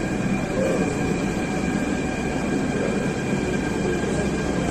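Steady hum of a Delhi Metro train standing at the station platform, with two constant high whining tones over it.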